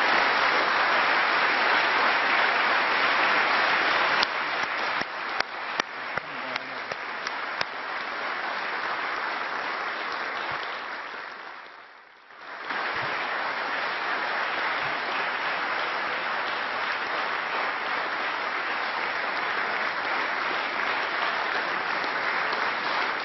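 Members of a parliament chamber applauding: a dense round of clapping, loudest at first, thinning after about four seconds with single claps standing out. It dies away almost to nothing about twelve seconds in, then comes back as steady applause.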